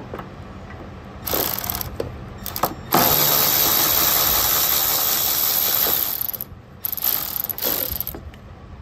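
Cordless electric ratchet spinning out the two 10 mm bolts of a power steering reservoir bracket. It runs in a short spurt about a second in and another brief one, then a steady run of about three seconds, and a last shorter run near the end.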